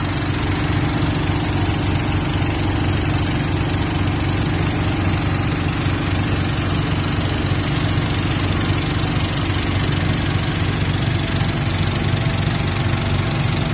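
A small boat's engine running steadily under way, with the wash of water along the hull.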